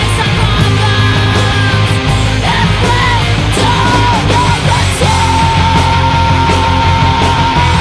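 Crust punk band recording: distorted guitars, bass and drums playing hard. A high melody line bends between notes, then holds one long note from about five seconds in.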